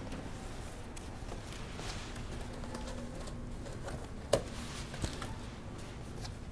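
Cardboard shipping box being opened by hand: the flaps and the paper inside rustle, with a sharp tap about four seconds in and a smaller one a moment later.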